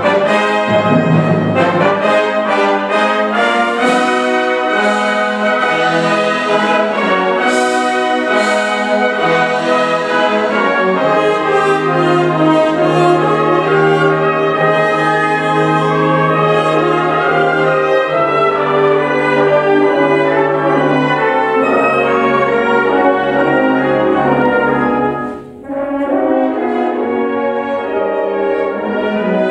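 Symphonic wind band playing a piece, with clarinets, saxophones, flutes, brass and percussion together. Near the end there is a brief break before the full band comes back in.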